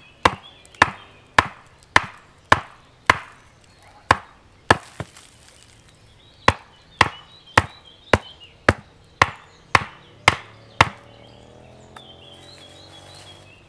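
A pointed wooden pole being driven into the ground by sharp knocks on its top, about two blows a second. There are two runs of blows with a short pause between them, and the knocking stops about eleven seconds in.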